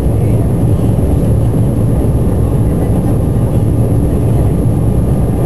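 Steady low rumble of a jet airliner's engines and airframe, heard from inside the cabin while the plane rolls along the ground.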